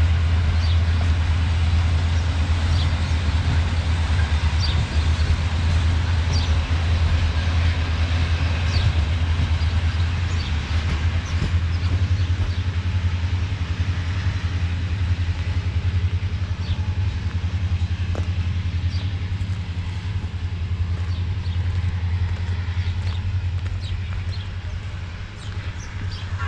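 Train running: a steady low rumble and hum with faint scattered clicks, easing slightly in the low part about halfway through.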